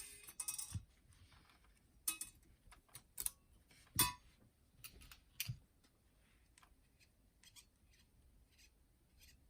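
Scattered small clicks and taps from hands and a tool working on a boombox's cassette-deck mechanism. The loudest knock comes about four seconds in, followed by fainter ticks.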